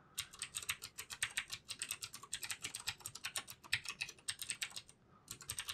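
Typing on a computer keyboard: a quick, steady run of keystrokes, a pause of under a second near the end, then a few more keys.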